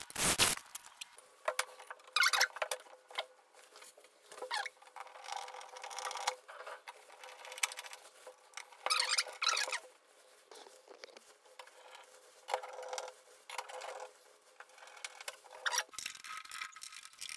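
Electric drill boring briefly into the aluminium sliding-door track at the start, then scattered scraping, rubbing and clicking as a hand screwdriver drives screws to fix the track to the wardrobe base.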